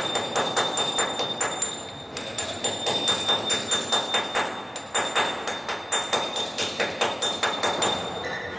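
Rapid hammer blows on steel, about four a second, each leaving a high metallic ring. The blows pause briefly about two seconds in and die away near the end.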